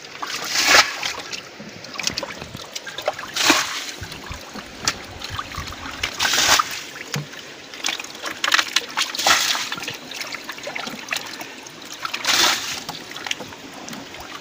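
Muddy water splashing five times, about three seconds apart, over a faint trickle, as fish are caught by hand in a shallow channel.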